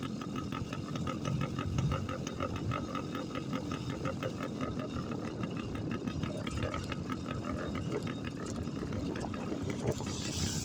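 Motorcycle engine running at low revs with a rapid, even throb as the bike rolls slowly downhill.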